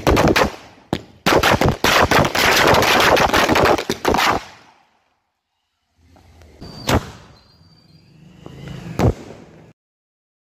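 Firecrackers exploding in a rapid, dense series of sharp cracks for about four and a half seconds. After a short pause come two single bangs about two seconds apart.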